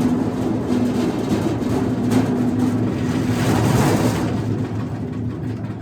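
Wood chipper's engine running steadily with a rattling clatter. The sound fades away over the last second or two.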